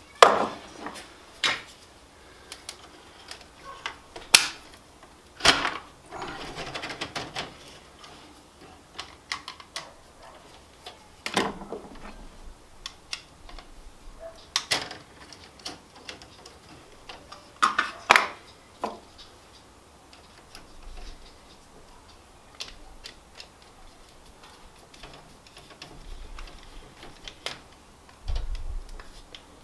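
Scattered sharp plastic and metal clicks and knocks from hands working in an electrical breaker panel, pulling out a circuit breaker and handling breakers and tools, with a low thump near the end.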